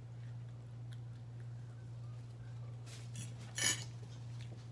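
A metal fork set down onto a plate: one brief, sharp clink about three and a half seconds in, just after a faint scrape.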